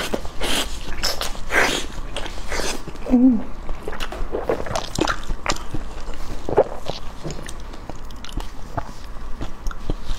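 Close-miked biting and chewing of braised pig skin: irregular wet smacks and clicks of the mouth working the chewy skin. There is a short vocal sound about three seconds in.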